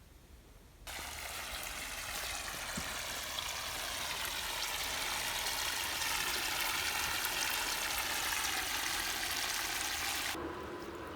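Water gushing steadily from a drainage pump's outflow, starting abruptly about a second in. Near the end the gush stops and a lower steady hum from the pump is left, as the pump stops picking up water from the nearly emptied cellar.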